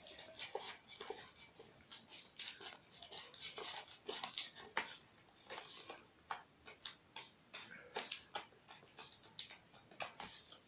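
Homemade slime being squeezed and worked by hand, giving a run of irregular sticky, wet clicks and squelches as it thickens.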